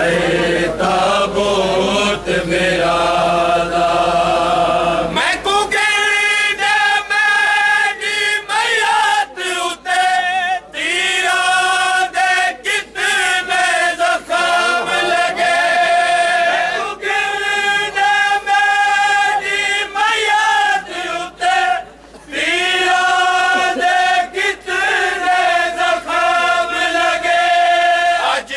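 A crowd of men chanting a Shia mourning chant (noha) in unison, with long held notes. From about five seconds in, a sharp beat comes about twice a second.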